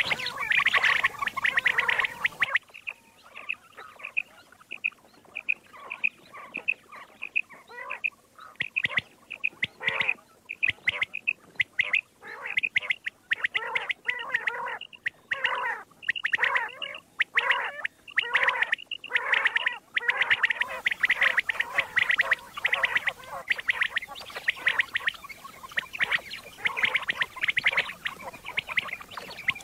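Common quail calling over and over in quick, rhythmic runs of short notes: a recorded quail call of the kind played to lure quail. The background hiss cuts out a couple of seconds in and returns about twenty seconds in, where recordings are spliced together.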